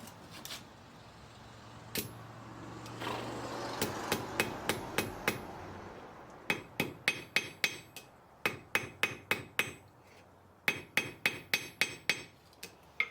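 Small hammer striking metal on an anvil in quick runs of blows, about four a second, each with a bright metallic ring. There are short pauses between the runs.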